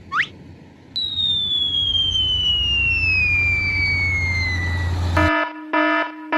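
Cartoon sound effects: a quick rising swish, then a long falling whistle over a low steady rumble, then a horn sounding in several short blasts.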